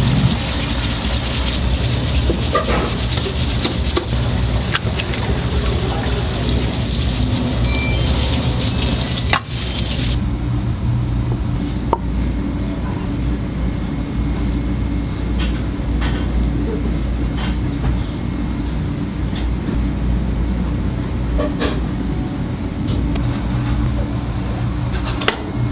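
Kitchen knife tapping on a wooden cutting board as abalone are sliced: scattered sharp taps from about twelve seconds in, over a steady low kitchen hum. The first ten seconds hold a loud steady hiss that stops suddenly.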